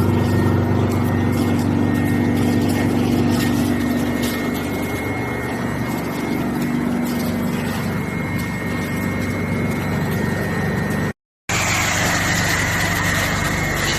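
A large drum wood chipper running steadily: a low drone with a high whine over it and scattered light ticks. The sound cuts out for a moment about eleven seconds in and comes back with the whine rising slightly.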